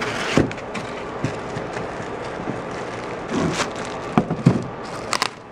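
Laptop packaging being handled as the laptop is unpacked: a steady rustle of plastic and cardboard with a few light knocks, a cluster of them near the end.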